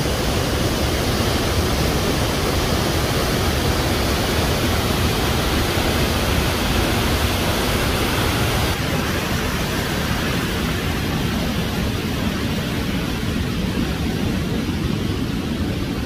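Steady rush of a large waterfall's falling water, an even noise with no breaks. The high hiss eases slightly about nine seconds in.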